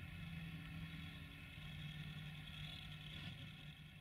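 A diesel engine idling steadily: a faint, low hum with steady higher tones above it.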